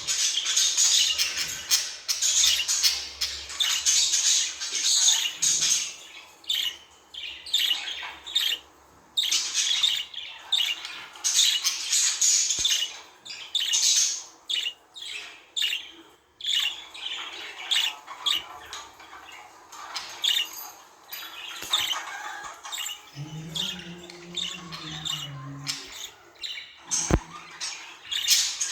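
Budgerigars chattering and warbling: a rapid, continuous stream of short high-pitched chirps and squawks with a few brief pauses. A short low hum comes about three-quarters of the way through, and a single sharp click near the end.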